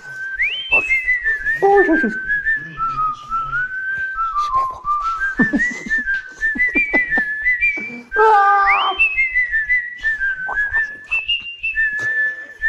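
A whistled melody: a single clear tone stepping and sliding in pitch from note to note, over a faint regular beat. Two short lower calls break in, about two seconds in and again about eight and a half seconds in.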